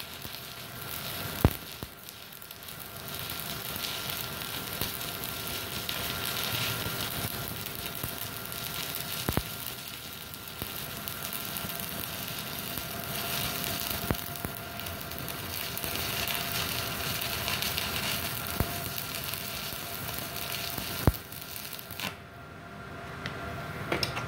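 Stick (shielded metal arc) welding arc with a 2.6 mm electrode, crackling and sizzling steadily with a few sharp spatter pops. The arc breaks off near the end.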